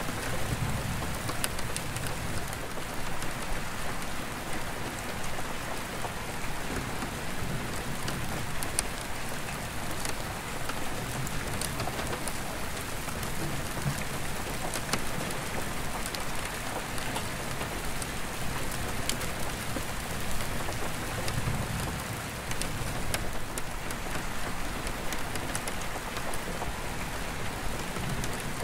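Steady rain on an attic skylight: an even hiss of rain with single drops ticking on the glass. A low rumble of distant thunder swells up now and then.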